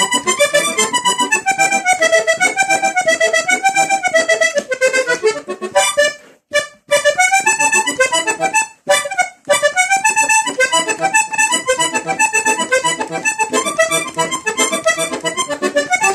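Diatonic button accordion playing the quick pique passage of a vallenato tune, note after note at a steady pace, with two short breaks about six and nine seconds in.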